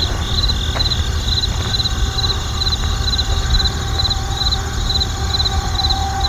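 Crickets chirping in a steady rhythm, about two short trilled chirps a second, over the continuous low rumble of distant traffic.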